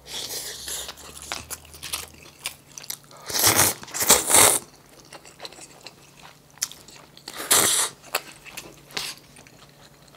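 Close-up eating sounds: wet chewing and smacking of a mouthful of stir-fried rice, broken by loud, noisy slurps of buckwheat noodles, a pair of them a few seconds in and another past the middle.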